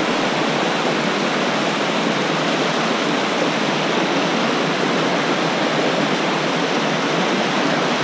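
Rushing water of a small rocky waterfall cascading over boulders: a steady, even noise.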